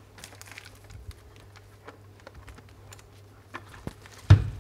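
Hands handling a lantern and its packaging: light crinkling and scattered small clicks, then one louder knock a little before the end.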